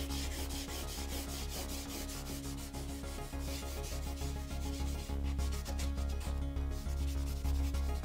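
Charcoal scratching and rubbing across thin drawing paper in rapid, continuous shading strokes, over a low steady hum.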